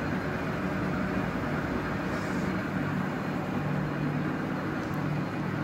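Steady low hum of running machinery, even throughout with no change in speed.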